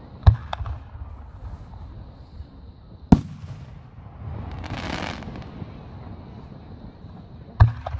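Aerial firework shells bursting, with three sharp bangs: about a third of a second in, about three seconds in, and near the end. A smaller crack follows the first bang, and a hissing rush swells for about a second and a half in the middle.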